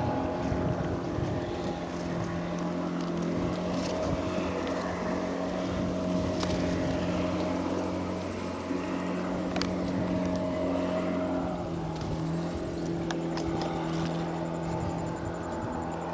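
A steady engine hum that holds one pitch and shifts slightly about three-quarters of the way through, over a swishing haze as reeds brush along the hull of a mokoro canoe, with a few sharp clicks.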